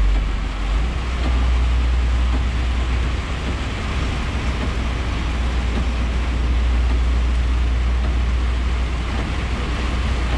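Scania R420 truck's six-cylinder diesel engine droning low and steady, heard inside the cab, over an even hiss of wet tyres and rain on the road.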